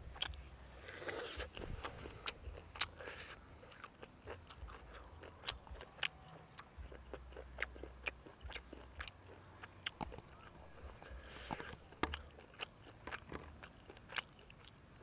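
A person eating roast duck close to the microphone: chewing and biting, with many short sharp clicks spread through.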